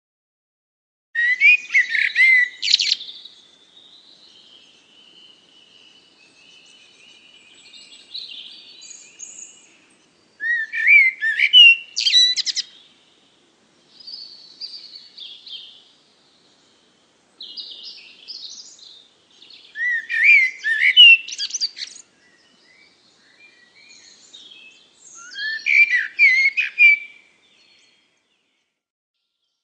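A songbird singing: four loud, rapid warbling phrases with softer twittering between them.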